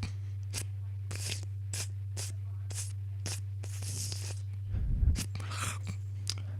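Dubbed-in cat licking sound effects: short lick strokes repeating about two to three times a second, with a heavier, deeper hit about five seconds in, over a steady low hum.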